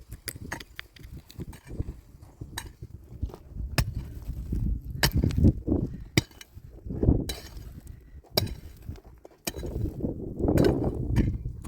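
Irregular sharp clinks and knocks, a dozen or so spread unevenly, over low uneven scraping or rustling noise that swells a few times.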